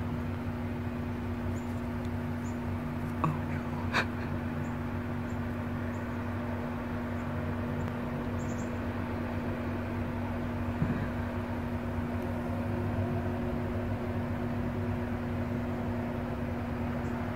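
A steady low mechanical hum with a few held tones, broken by two short clicks about three and four seconds in.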